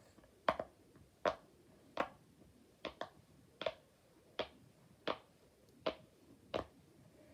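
Silicone pop-it fidget toy pressed on its good side, its bubbles popping one at a time: a steady run of crisp pops, a bit more than one a second.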